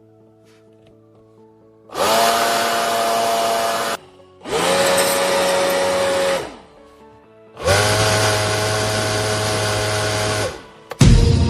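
A small electric motor or power tool switched on and off three times, running about two to three seconds each time with a steady whine over a hiss, spinning up at each start and winding down at each stop.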